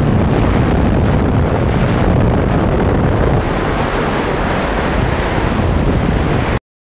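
Strong wind buffeting the microphone: a loud, steady, low rushing noise that starts and cuts off abruptly.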